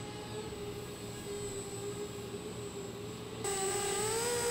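Custom 250-size racing quadcopter in flight, its brushless motors and propellers making a steady whine whose pitch wavers a little with the throttle. The whine becomes louder and brighter about three and a half seconds in.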